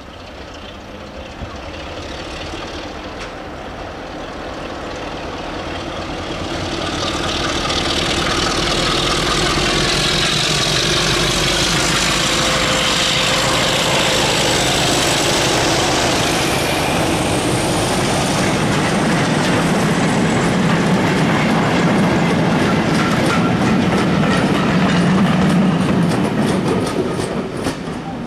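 British Rail Class 33 'Crompton' diesel-electric locomotive, with its Sulzer eight-cylinder engine, approaching and running past with a freight train. The engine grows louder over the first several seconds, then the wagon wheels clatter in a steady rhythm over the rail joints as the train goes by, dropping away near the end.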